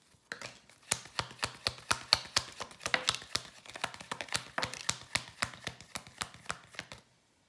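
Rapid, irregular tapping clicks, several a second, starting just after the beginning and stopping abruptly about seven seconds in.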